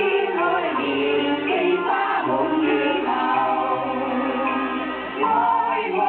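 A group of singers performing a song together as a choir, with a musical accompaniment underneath.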